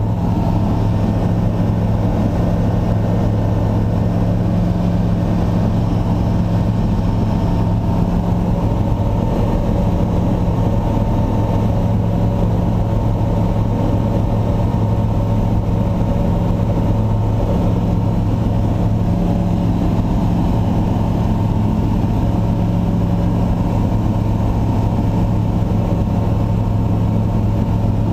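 An engine running at a steady speed, a constant low drone that does not rise or fall.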